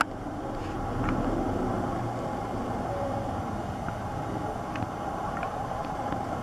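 Steady low outdoor background rumble, even throughout, with a few faint ticks.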